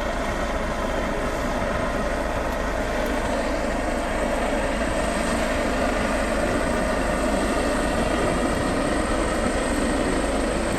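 Coastguard helicopter hovering during a winch transfer: a steady, loud, even rush of rotor and engine noise.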